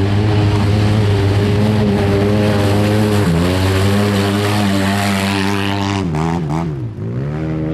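Side-by-side UTV engine running hard through mud, a steady drone whose pitch drops a little over three seconds in. About six seconds in the revs fall away and then climb again.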